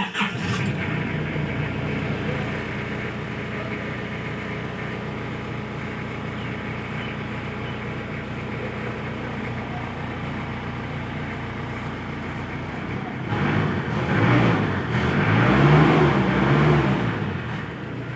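Isuzu Bighorn's 4JG2 four-cylinder diesel engine running steadily, then revved up and down a few times near the end. The engine is running again after a hard-starting fault was fixed.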